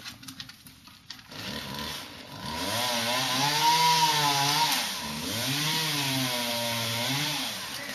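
Chainsaw starting about a second in and running, its engine pitch rising and falling several times as it is revved up and down.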